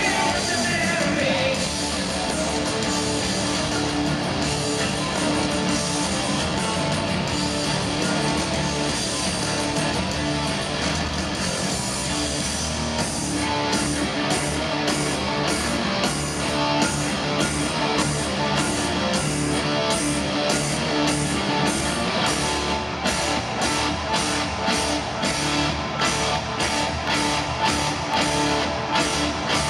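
Live progressive metal band in full swing: electric guitar and bass playing sustained, ringing parts. About thirteen seconds in, the drums come up with an even cymbal beat.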